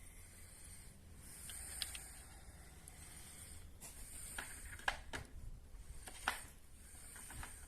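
Light clicks and knocks of small parts being handled, with stretches of faint high rubbing or hiss between them; the two sharpest clicks come about five and six seconds in.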